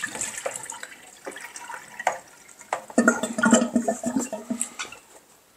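Rinse water draining and splashing out of an Air Still Pro's plastic body into a sink as it is tipped, with light clicks and knocks of its plastic parts against the sink.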